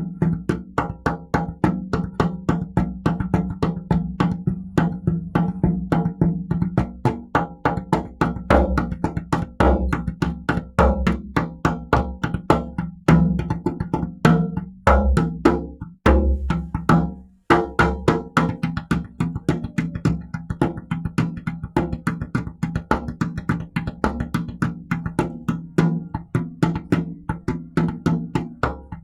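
Background music with a fast, steady percussion beat over a sustained low bass note.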